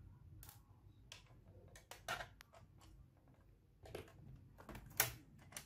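Scattered light clicks and taps at irregular times, the sharpest near the end: small hard objects being handled on a table during laptop disassembly.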